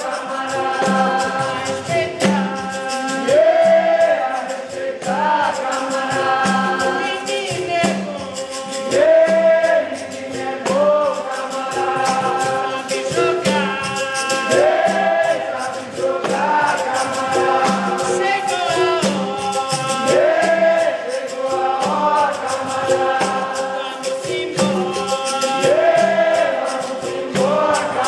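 Capoeira Angola bateria playing: berimbaus struck over a steady tone, with caxixi rattles and pandeiro jingles in a dense, even rhythm. A lead singer and the group sing over it in repeated phrases.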